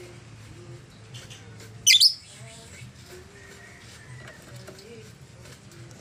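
A female blue masked lovebird gives one short, loud, shrill screech about two seconds in, in two quick pulses.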